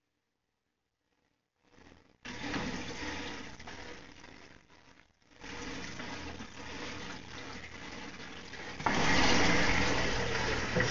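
Water rushing and splashing. It starts suddenly about two seconds in, drops away briefly near the middle, and is louder over the last two seconds.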